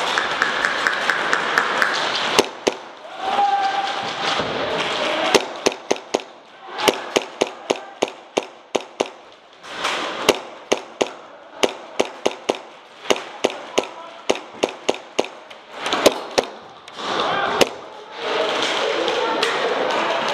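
Airsoft guns firing: strings of sharp single shots, several a second, with short pauses between the strings.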